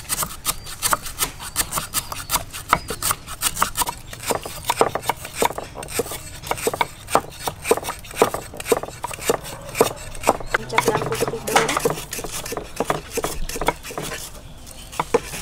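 Knives and a cleaver chopping lemongrass on wooden chopping blocks: rapid, uneven knife strikes, several people cutting at once.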